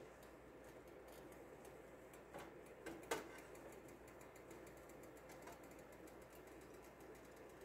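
Near silence: room tone with a few faint clicks a little over two to about three seconds in, the last the loudest.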